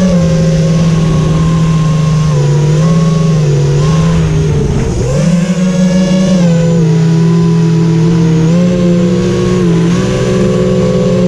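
FPV quadcopter's brushless motors and propellers whining at changing throttle, the pitch dropping sharply about four and a half seconds in and climbing straight back, with smaller dips later.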